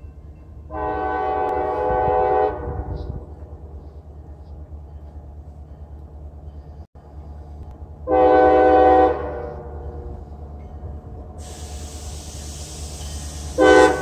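Freight locomotive air horn blowing for a grade crossing: a long blast starting about a second in, a shorter blast about eight seconds in, and a brief blast at the end. Under it runs a steady low rumble, and a steady hiss begins about eleven seconds in.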